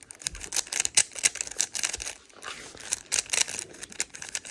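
Plastic speed cube's layers being turned rapidly by hand: a fast, irregular run of clicks and clacks as a move sequence is executed at speed.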